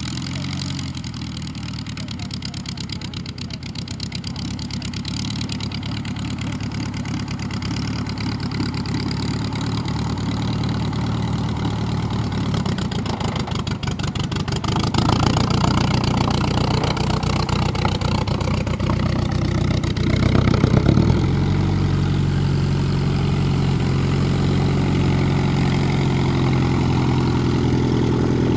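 Klemm 35D vintage light aircraft's piston engine running steadily, picking up power in two steps, about halfway through and again about three-quarters through.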